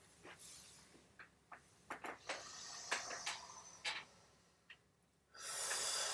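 Faint rustling and scattered small clicks as a person shifts and moves close to the microphone, then a long, noisy breath in near the end.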